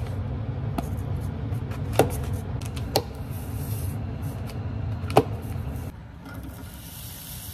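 Kitchen knife slicing button mushrooms on a paper plate, with several sharp taps as the blade goes through and hits the plate. About six seconds in, a faint sizzling hiss starts as the sliced mushrooms go into a hot frying pan.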